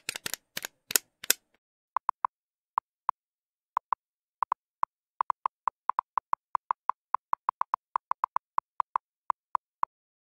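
Text-animation sound effect: a quick run of about five sharp clicks in the first second and a half, then a string of short, identical beeps at irregular spacing, about three or four a second. The beeps are a typing effect as text types onto the screen letter by letter, and they stop shortly before the end.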